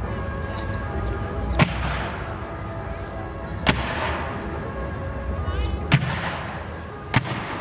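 Fireworks shells bursting with four sharp bangs about two seconds apart, each followed by a fading hiss, over background music with sustained tones.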